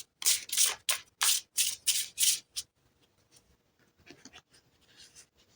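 Tarot cards being shuffled by hand: a run of about eight quick papery swishes over two and a half seconds, then a few faint rustles of card handling.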